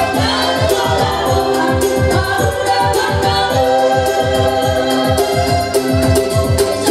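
Several women singing together through microphones and a PA, backed by an arranger keyboard playing sustained organ-like chords over a steady, quick low electronic drum beat.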